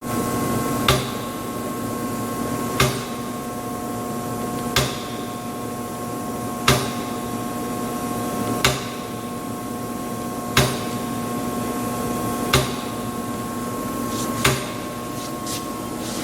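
Moore No. 3 jig grinder running with a steady hum made of several held tones, and a sharp click about every two seconds, repeating evenly.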